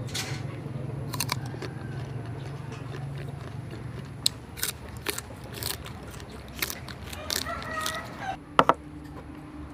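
Crisp bites and chewing of raw green mango slices, a series of sharp crunches and snaps with the loudest near the end. A low steady hum runs through the first half, and a chicken calls briefly shortly before the last crunches.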